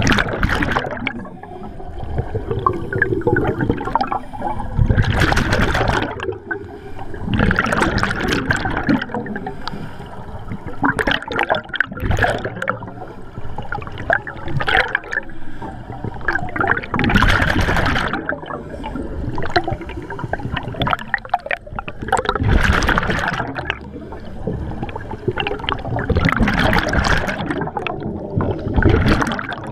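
Scuba regulator breathing heard underwater: exhaled air gurgling out in a loud burst of bubbles every few seconds.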